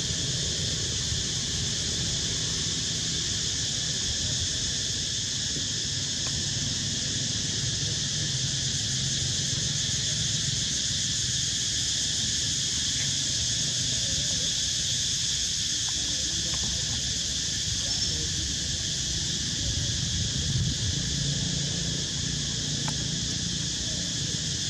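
Steady, high-pitched insect chorus droning without a break, over a low background rumble.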